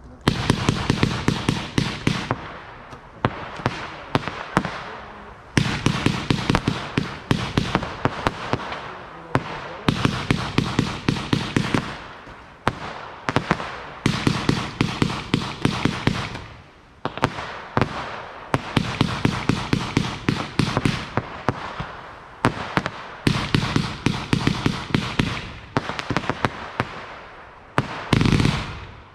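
Fireworks going off: rapid volleys of sharp bangs and crackling, coming in repeated salvos a few seconds long with short gaps between them.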